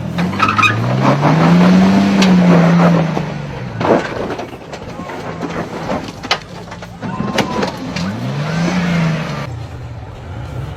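A 4x4's engine revving up and falling back twice, once starting about half a second in and again near the end, over a steady rush of noise. A few sharp knocks come in between.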